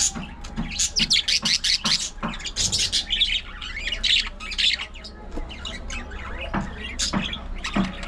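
A flock of budgerigars chattering, with quick, sharp chirps and warbling squawks. The calls come thickest in the first half and thin out toward the end.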